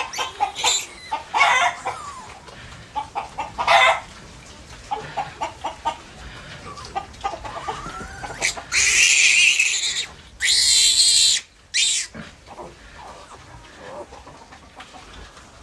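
Chickens clucking, then a piglet squealing, loud and high-pitched: two long squeals of about a second each, then a short one, as it is held for a syringe injection.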